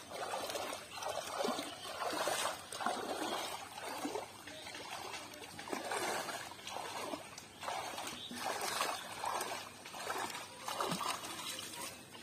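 Hands splashing and sweeping shallow pond water, a steady run of splashes about one or two a second, with water trickling and dribbling back between them.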